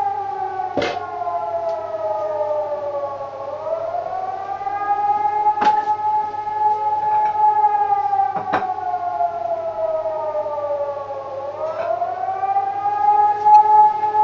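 Civil-defense siren sounding the rising and falling 'Alarm' signal of a civil-protection test. The pitch sinks slowly for several seconds, swoops back up and holds, about once every eight seconds, with a second, fainter wail overlapping out of step. A few sharp clicks sound over it.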